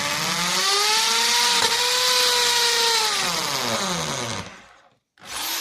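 Electric drill boring into a roll of PVC card-printer ribbon, its motor whine holding steady with a slight dip partway, then falling in pitch as it winds down after about four and a half seconds. A short burst of the drill follows near the end.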